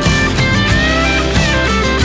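Background music: a pop song with a prominent guitar line, instrumental at this moment.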